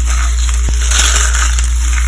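Dry carved soap roses and soap curls being crushed, a dense crisp crunching and crackling with a few sharper snaps. A steady low hum runs underneath.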